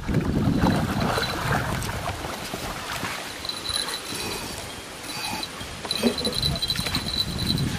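Crickets chirping at night in a high, pulsing trill, with a low rumble of noise over the first couple of seconds and again near the end.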